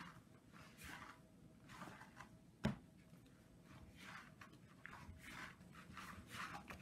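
Hands kneading a soft yeast dough on an oilcloth-covered table: faint, repeated rubbing and pressing strokes, with one sharp knock a little under three seconds in.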